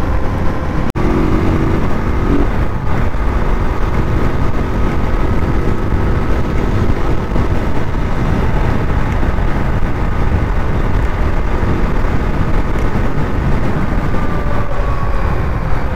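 Wind rushing over a helmet-mounted microphone while a KTM RC390's single-cylinder engine runs at a steady cruise, its engine note faint under the wind.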